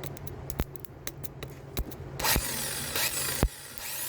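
Hand-tool work under a car at the starter: several sharp knocks, and from about halfway a loud scraping rasp that cuts off sharply near the end.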